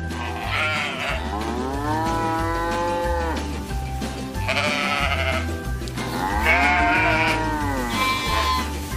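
Sheep bleating several times, two of the calls long and drawn out, over background music with a steady low bass.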